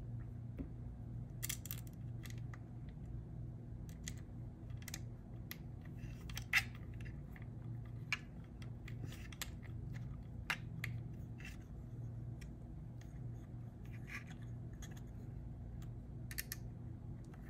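Small hex screws and an Allen key clicking and scraping against the metal plate of a trolling-motor controller as the screws are put back in and turned. There are scattered light clicks, one sharper than the rest about six seconds in, over a steady low hum.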